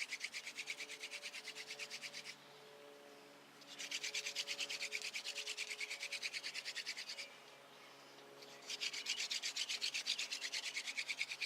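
Horseweed hand-drill spindle being spun between the palms on a sycamore hearthboard, the tip grinding in the notch with fast, even rasping strokes. It comes in three bouts, with short pauses about two and a half and about eight seconds in.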